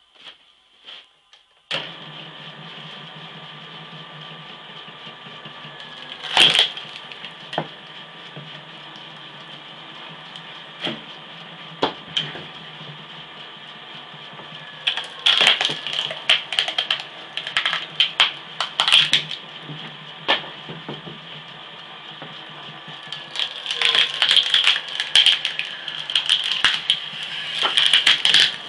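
Homemade cone log splitter: its 0.75 kW three-phase electric motor, geared 1:3, starts up about two seconds in and runs with a steady hum. The threaded steel cone screws into a log, and the wood gives a loud crack near the first quarter. Dense runs of sharp cracking and splintering follow in the second half as the log splits apart.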